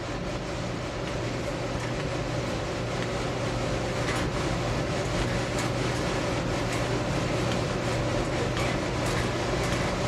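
Oil furnace's Beckett oil burner running steadily, a low hum with the rush of the flame, its air turned down for a deliberately smoky flame at the start of a smoke test. From about four seconds in come faint soft strokes, about one every second and a half, from the hand smoke pump drawing flue gas through its filter paper.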